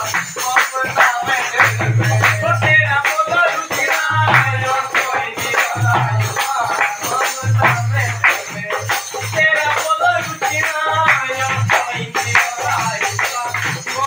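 Pahadi nati folk song: a man sings the melody over a dholak drum beating a lively rhythm, with a jingling tambourine and hand claps keeping time.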